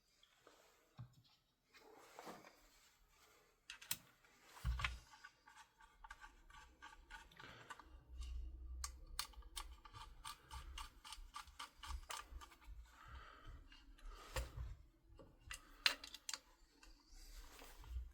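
Faint clicks and metal handling noises as a small screw on an airsoft rifle is turned with a 2.5 mm hex key. Around the middle there is a quick run of even clicks, about five a second.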